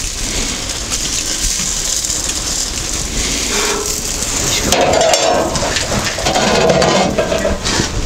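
Steady crackling hiss of pork shashlik sizzling in a clay pot heated over a charcoal grill, as the last pieces are pushed off a metal skewer. Rougher scraping from about five seconds in.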